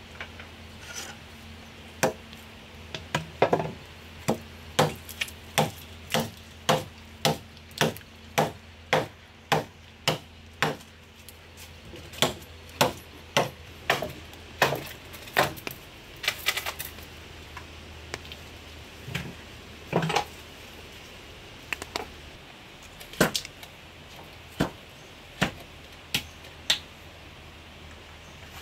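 Machete chopping a wooden pole: sharp blows about two a second, with short pauses, thinning to occasional single strikes in the second half.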